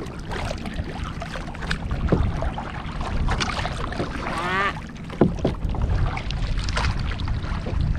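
Paddles dipping and splashing in the sea as a small paddle boat is paddled along, with wind on the microphone. There is a brief vocal sound about halfway through.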